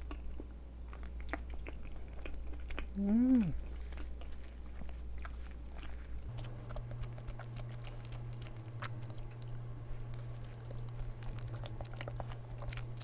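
Close-up chewing and wet mouth sounds of someone eating a soft cream-filled chestnut Mont Blanc roll cake, with many small smacks and clicks. A short hummed "mm" about three seconds in rises and falls in pitch.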